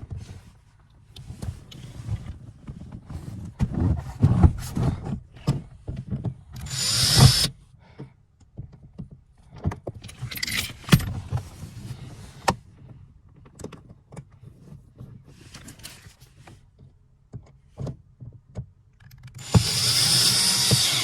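Drill driving screws back in through a socket extension, in two short runs, the second longer, amid clicks, knocks and rattles of tools and plastic trim being handled.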